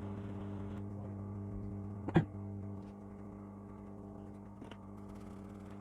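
Steady electrical mains hum from bench equipment, with one sharp click about two seconds in and a fainter click later. The hum drops a little soon after the first click.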